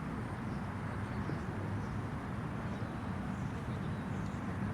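Steady, low outdoor background noise with a few faint high chirps.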